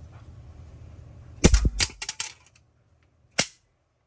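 A quick cluster of sharp plastic clicks and knocks about a second and a half in, the first with a dull thump, then a single click near the end: the small plastic casing of a wireless mouse receiver being worked apart in a teardown.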